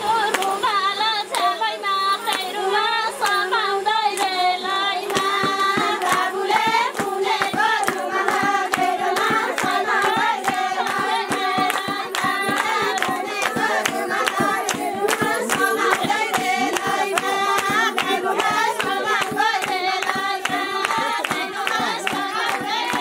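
A group of women singing a folk song together to steady hand-clapping and the beat of a two-headed barrel hand drum. The clapping and drum strokes grow denser about five seconds in.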